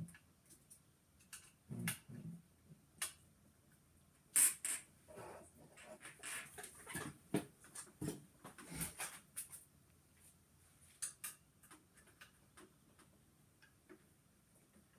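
Screws on a metal staging assembly being retightened by hand with a tool: quiet, irregular clicks, scrapes and small squeaks, busiest in the middle stretch.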